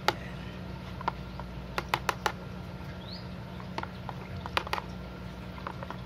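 Irregular sharp ticks and small drips as water runs off a hand net into a plastic tub of freshly strained pond water, with one short rising chirp about three seconds in.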